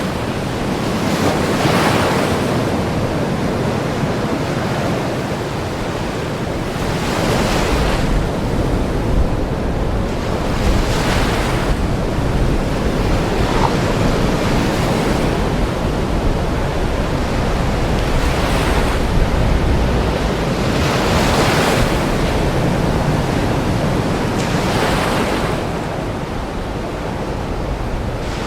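Ocean waves washing in, a steady rush of surf that swells and falls back every three to four seconds.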